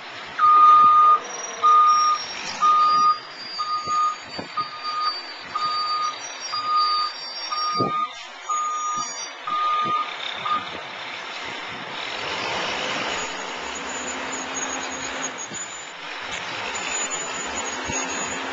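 A truck's backup alarm beeping in a steady single tone about once a second, about ten beeps, stopping around ten seconds in. After that, a steady rushing noise of wind and traffic.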